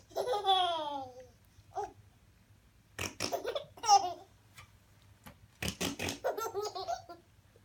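Short, quick raspberry fart noises blown with the lips, a few times, each answered by a baby's laughter, one laugh falling in pitch near the start.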